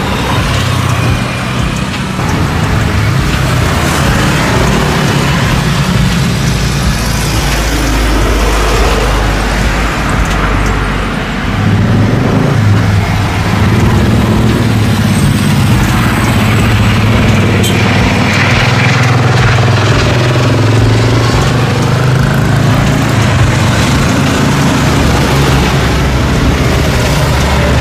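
Jet engines of Airbus A350 airliners close by: a continuous loud, low rumble, first from one climbing out at take-off thrust, then, after a change about twelve seconds in, from another on final approach touching down on the runway.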